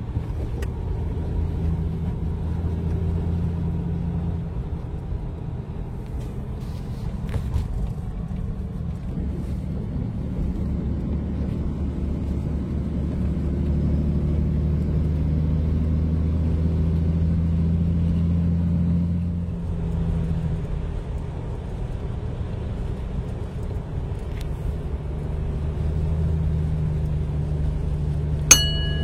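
Semi truck's diesel engine droning steadily while driving, its pitch shifting a few times as the speed changes. A single sharp click with a brief ringing tone comes near the end.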